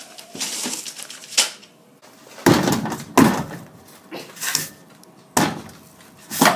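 A series of irregular knocks, bumps and scuffs, about half a dozen, some with a short rustle after them.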